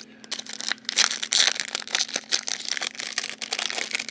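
Foil booster-pack wrapper crinkling and rustling as it is handled and torn open, a dense run of small crackles.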